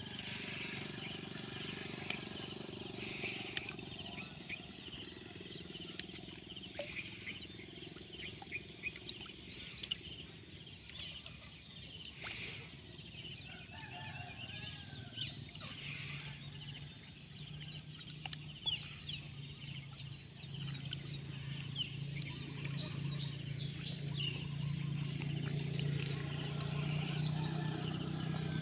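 Outdoor animal ambience: many short high chirps and calls throughout. A low steady hum comes in about halfway and grows louder toward the end.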